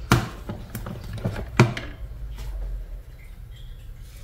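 Oster rotating waffle maker being turned over by its handle and its lid swung open: a few sharp plastic clicks and clunks in the first two seconds, the loudest at the very start and again about a second and a half in.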